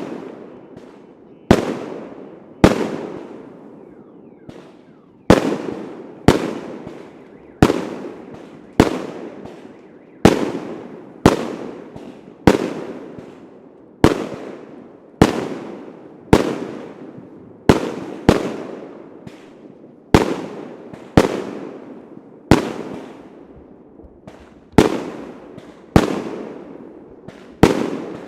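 Fireworks going off in a steady series, about one sharp bang a second, each followed by a rumbling echo that fades out. There is a short pause between the second and fifth seconds.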